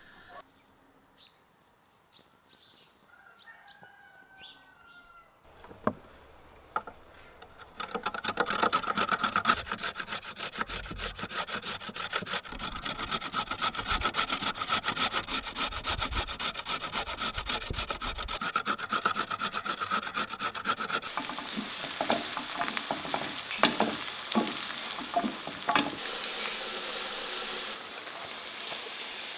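A carrot being grated on a metal box grater: quick, repeated rasping strokes starting about eight seconds in. About twenty seconds in, this gives way to diced onions sizzling in oil in a frying pan.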